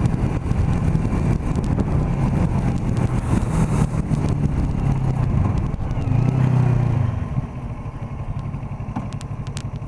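Kawasaki Ninja 650R's parallel-twin engine running as the bike rides along, its pitch rising and falling with the throttle. It swells briefly about six seconds in, then drops to a quieter, lower run as the throttle comes off.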